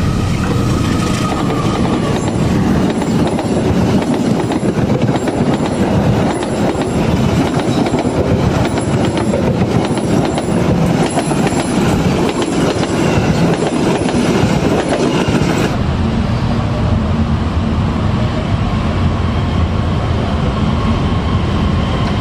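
A diesel locomotive hauling a passenger train passes close at speed, the coaches' wheels clacking over the rail joints in a steady rhythm under a loud rush of noise. About two-thirds of the way through it cuts suddenly to the steadier running of another diesel locomotive approaching.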